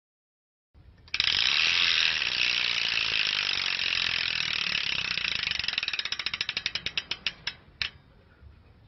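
Bicycle freewheel ratcheting as it spins freely: a fast buzz of pawl clicks that slows into separate clicks and stops near the end.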